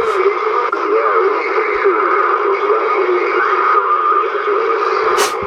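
CB radio (Uniden Bearcat 980) speaker receiving a distant station over AM skip: a thin voice wavering in and out under static.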